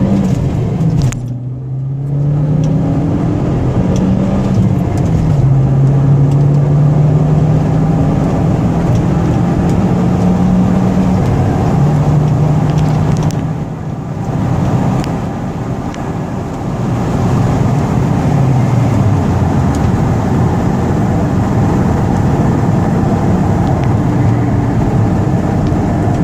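2002 Volkswagen Jetta's 1.8-litre turbocharged four-cylinder engine pulling under throttle, its note rising and then dropping at gear changes, easing off in the middle and settling into a steady cruise later on.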